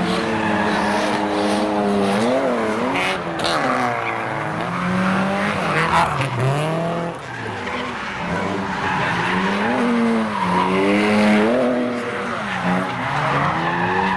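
Nissan 200SX S14 drift car's turbocharged SR20DET engine with an external wastegate, revving up and down repeatedly, its pitch rising and falling every second or two, with tyres squealing as it drifts.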